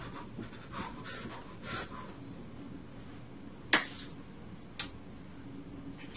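A few short, forceful puffs of breath, then two sharp hand claps about a second apart, the first much louder.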